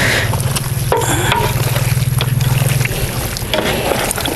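Raw chicken pieces being mixed by hand in a wet marinade of ground shallots, garlic and ginger: irregular wet squishing and small knocks, over a steady low hum that is louder for the first three seconds.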